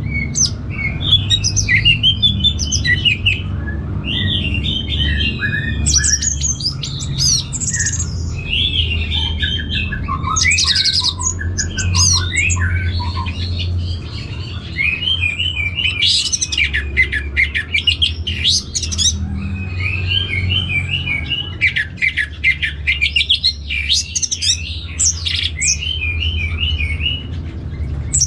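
Orange-headed thrush singing a long, varied song of quick whistled and squeaky phrases, broken by rapid trills, over a steady low hum.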